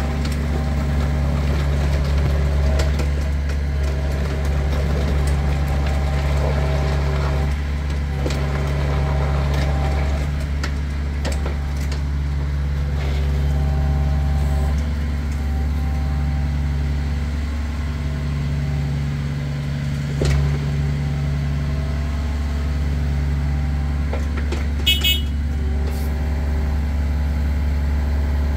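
Hitachi ZX48U-6 mini excavator's diesel engine running steadily, with the hydraulics whining on and off as the boom and arm are worked. A few clunks from the machine, and a brief high chirp near the end.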